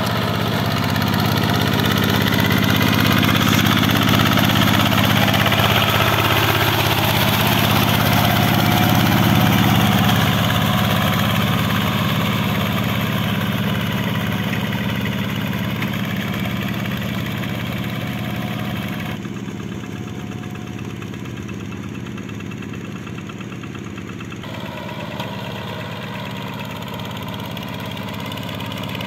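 Single-cylinder diesel engine of a Quick G1000 two-wheel hand tractor running steadily under load as its cage wheels work a flooded paddy. It grows quieter through the middle as the tractor moves away.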